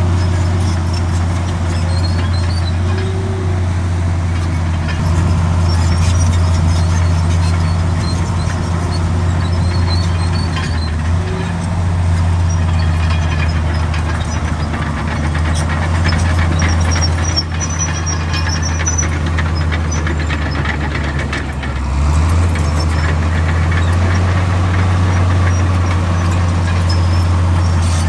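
Heavy diesel earthmoving machinery running under work, a deep steady engine drone that dips briefly and picks up again about three quarters of the way through, with faint high squeaks now and then.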